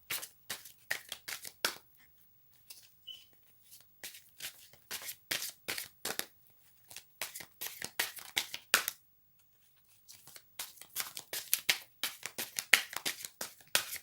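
A deck of cards being shuffled by hand: quick, irregular slaps and rustles of the cards, pausing for about a second roughly two-thirds of the way through.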